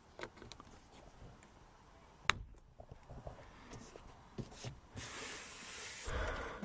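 Plastic door-trim cover being fitted by hand: light handling taps, one sharp snap a little over two seconds in, then a rustling scrape for about a second and a half near the end.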